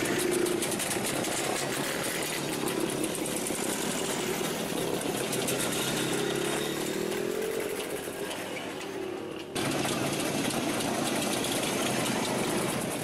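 Old Jawa and ČZ motorcycles riding past one after another, their engines running, with one engine's pitch rising and falling a little past the middle. The sound cuts abruptly about nine and a half seconds in and carries on.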